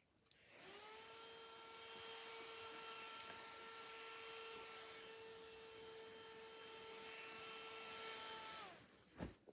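Electric fan switched on, spinning up to a steady whirring hum with a faint whine, then winding down about eight and a half seconds in, followed by a click.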